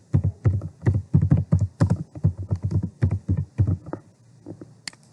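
Typing on a computer keyboard: a quick run of keystrokes that stops about four seconds in, followed by a single sharper click near the end.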